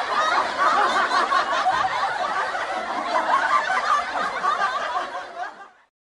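Audience laughter sound effect: many people laughing together, fading out about five and a half seconds in.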